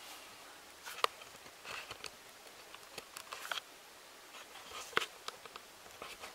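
Quiet handling noises: light clicks and taps of metal parts and a screwdriver on a work board, with sharper clicks about a second in and about five seconds in.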